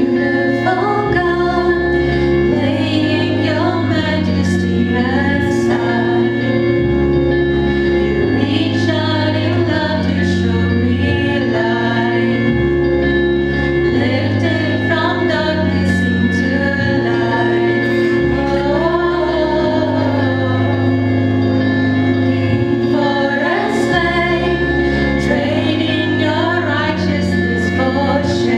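Two women singing a slow worship song into microphones, over sustained chords and a bass part that shifts every two seconds or so.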